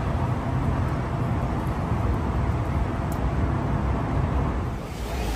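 Steady outdoor rumble of engine and traffic noise, with a low, even hum underneath.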